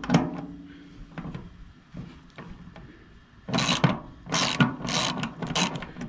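Socket ratchet wrench undoing a 10 mm bolt on the wood chipper's metal back panel. There is a single clink at the start, then rapid pawl clicking in four short bursts in the second half as the handle is swung back and forth.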